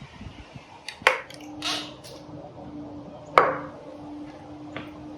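Handling of metal bike parts: two sharp knocks, the second and louder one with a brief metallic ring, with short rustles between them and a faint steady hum underneath.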